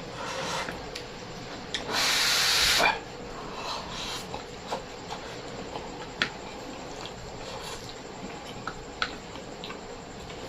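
A person eating: scattered small mouth clicks and smacks from chewing, with one loud hiss lasting about a second, about two seconds in.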